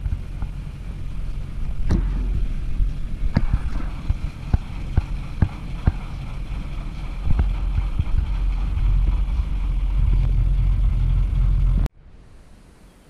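YuMZ-6 tractor's four-cylinder diesel running steadily while it works a round baler pressing hay, with irregular sharp knocks and clatter. The sound cuts off suddenly near the end.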